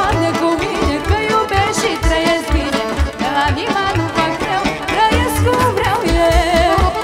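Live Vlach folk band playing wedding dance music: a singer over instruments, with a steady low drum beat.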